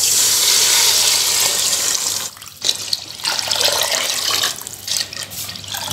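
Water being poured into a cooking pot of masala: a steady rushing pour for about the first two seconds, then uneven, broken splashing as more is poured in.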